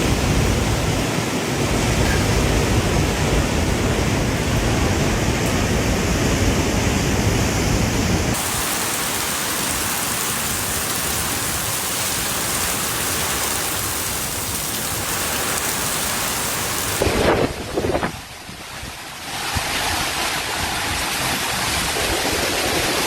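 Tropical cyclone wind and heavy rain, a dense steady rush with wind buffeting the microphone. The sound changes abruptly about eight seconds in, and again around seventeen and nineteen seconds, with a brief lull near eighteen seconds.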